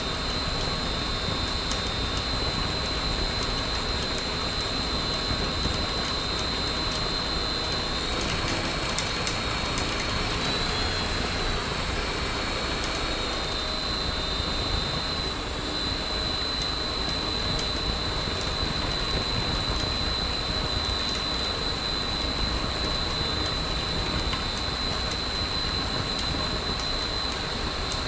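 Hacker A60-16L brushless electric motor spinning a six-blade homemade propeller at a steady speed: a constant high whine over a rush of prop wash and a low rumble.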